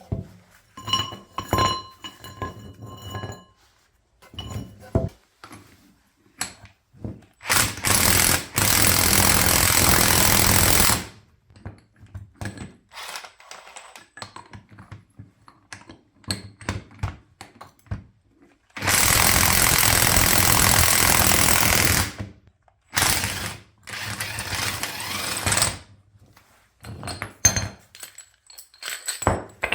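Parkside PASSK 20-LI B2 brushed cordless impact wrench hammering on a wheel bearing puller, in two long bursts of about three seconds each and then two shorter ones, pressing the bearing out of the hub. Ringing clinks of steel tools and parts come in between.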